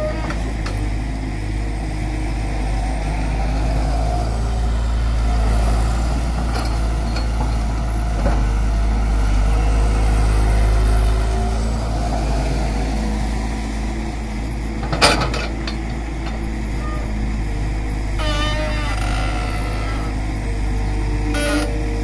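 Tata Hitachi hydraulic excavator's diesel engine running steadily under load as the machine digs and swings its bucket, with one sharp clank about fifteen seconds in.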